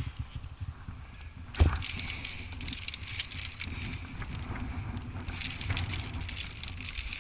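Metal climbing gear on a harness, carabiners and cams, clinking and jangling as the climber moves on the rock. A dull thump about one and a half seconds in, then the jingling keeps on.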